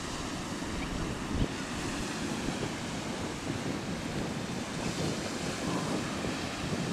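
Wind buffeting the microphone with a gusty low rumble, over the wash of small waves on the shore. One louder buffet comes about a second and a half in.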